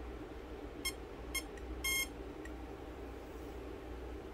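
Castle Creations Hydra XLX2 boat speed control powering up on a 6S pack: two short high beeps about half a second apart, then a slightly longer beep, its start-up tones. A low steady hum lies underneath.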